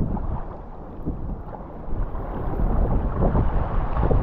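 Wind buffeting the microphone over water slapping and splashing against a sea kayak's hull in choppy water, getting louder about two seconds in.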